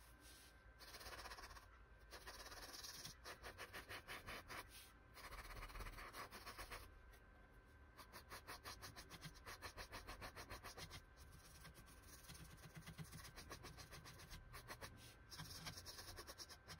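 Faint scratching of a paintbrush on canvas, a fast, even run of small scratchy strokes.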